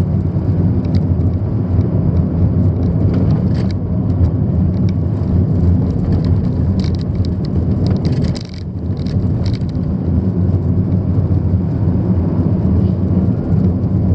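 Steady low rumble of a car driving along a road, engine and tyre noise heard from inside the cabin; it dips briefly about eight and a half seconds in.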